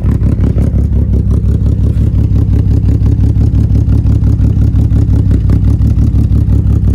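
Ford Falcon 4.0-litre inline-six running steadily, with a rapid, even pulsing beat. Cylinders 3 and 5 are not firing.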